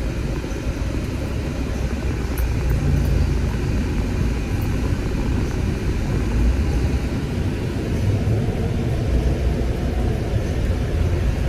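Steady road and engine noise of a moving car, heard from inside the cabin as a low, even rumble.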